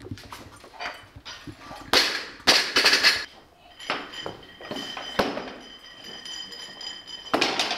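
Bumper plates and an Olympic barbell being handled: a series of sharp metal clanks, the loudest cluster about two to three seconds in, with single clanks later.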